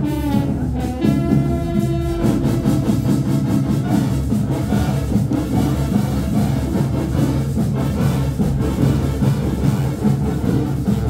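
Marching band of brass and drums playing, held brass notes over a steady drum beat.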